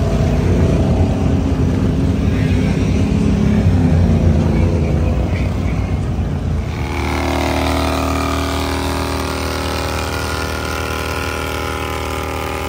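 A motor engine running loud: a rough, uneven rumble for about the first seven seconds, then a steadier, even engine note.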